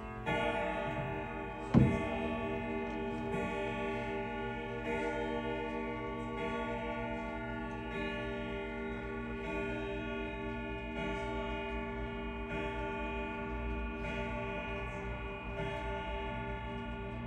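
Sligh Franciscan grandfather clock chiming, a new ringing note about every second and a half over its steady ticking. A sharp knock about two seconds in, as its glass door is swung shut.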